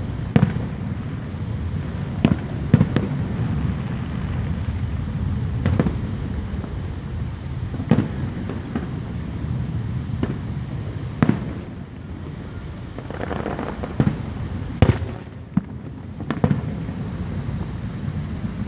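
Aerial fireworks going off: a steady low rumble broken by sharp, irregular shell bursts, about eight in all, spaced one to three seconds apart.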